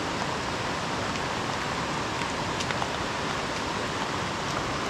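Heavy rain falling steadily, with a few sharp drop ticks standing out, over the rush of a rocky mountain river.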